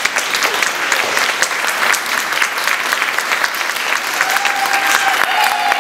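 Audience applauding, a dense patter of many hands clapping, with a long high call from the crowd held steady from about four seconds in.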